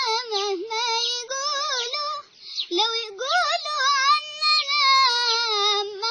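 A child singing an Arabic song unaccompanied, in a high voice with wavering, ornamented melodic lines, with a short pause about two seconds in.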